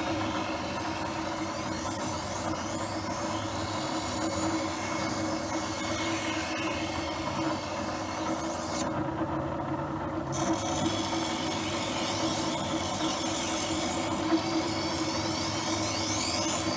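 Dick SM-111 knife sharpening machine running with a steady motor hum while a knife blade is drawn across its grinding wheel, a rough rasping scrape. The scraping drops out for about a second roughly nine seconds in as the blade comes off the wheel, while the hum carries on.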